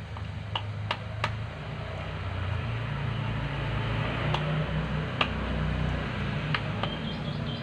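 A metal spoon stirring bait dough in a plastic bowl, with a few sharp clicks where it strikes the bowl's side, over a steady low hum that swells toward the middle.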